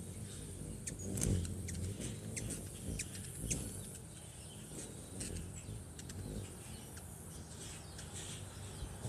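Hummingbird wings humming close by, swelling as birds fly in near the feeder, with many quick high chips from the birds.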